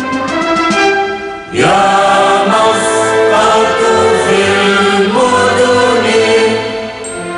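A choir sings an Arabic patriotic song (nashid) with musical accompaniment. The music dips briefly about one and a half seconds in, then a new sung phrase comes in.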